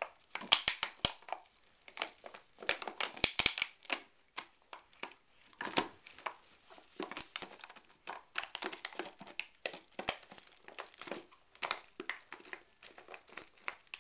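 A dog chewing on a clear plastic tennis ball can, the thin plastic crinkling and crackling under its teeth in quick, irregular clicks.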